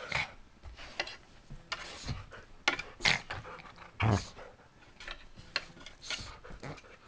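Two dogs play-fighting on a couch: a string of short, irregular huffs and scuffles, with a deeper, louder burst about four seconds in.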